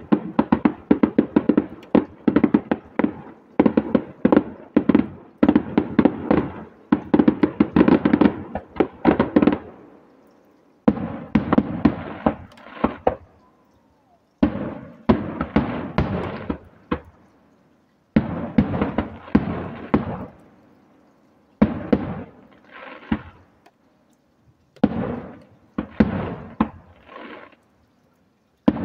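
Aerial fireworks bursting: a rapid barrage of bangs and crackle for about the first ten seconds, then separate volleys of bangs every few seconds with short quiet gaps between them.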